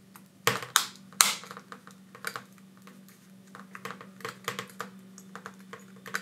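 Sharp clicks and taps of small plastic and metal parts as fingers press a smartphone's inner back plate down over the motherboard and connectors. The loudest clicks come close together about half a second to a second and a half in, followed by lighter scattered ticks.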